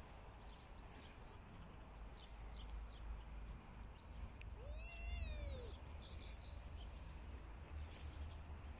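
A cat meows once about halfway through: a single call about a second long that rises and falls in pitch. Faint short high chirps and a low rumble run underneath.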